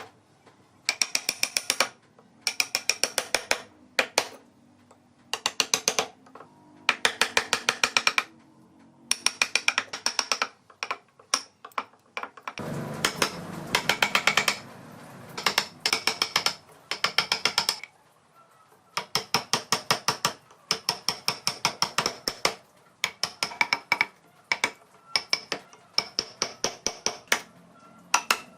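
Short bursts of rapid mechanical clicking, about a second each with brief pauses between, and a stretch of rough scraping noise about halfway through.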